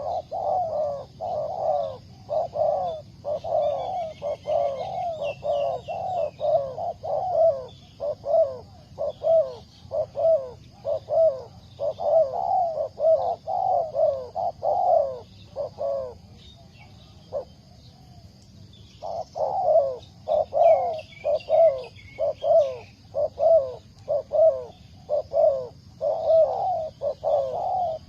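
Spotted dove cooing, a fast run of repeated low coo notes, two or three a second, with a pause of about three seconds past the middle. A few brief high chirps from small birds come in twice.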